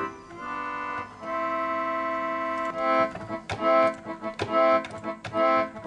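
Electronic chord organ sound from a software sampler plugin. It plays a couple of held chords, then from about three seconds in a run of short, repeated chords, roughly two or three a second.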